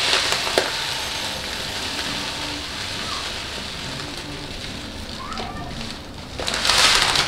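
Dry rice grains rustling and pouring as a hand scoops them from a plastic bag into a glass cup. There is a steady grainy hiss that fades off, then a louder rush of rustling near the end.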